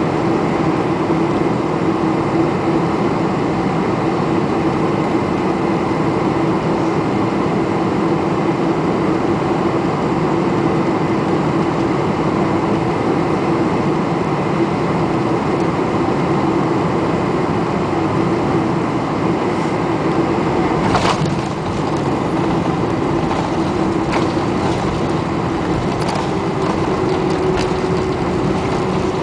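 Steady cabin noise inside a Boeing 747-400 airliner on arrival: engine and air noise with a constant low hum. A single sharp knock sounds about two-thirds of the way through, followed by a few faint ticks.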